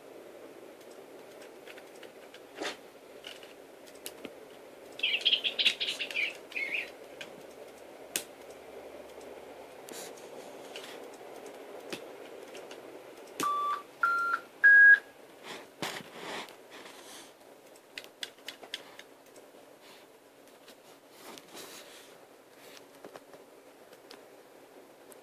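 Small bird chirping, with a quick twittering burst about five seconds in and three short clear whistled notes rising in steps about halfway through. Scattered light clicks run between the calls.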